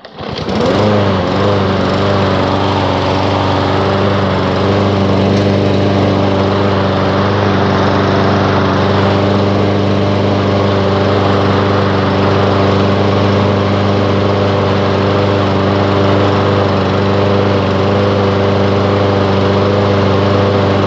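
Briggs & Stratton 550EX 140cc single-cylinder overhead-valve lawn mower engine pull-started, catching at once and rising to speed within about a second, then running steadily. It starts readily.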